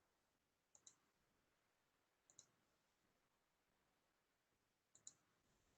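Near silence broken by three faint clicks of a computer mouse, each a quick press-and-release pair: about a second in, at about two and a half seconds, and near the end.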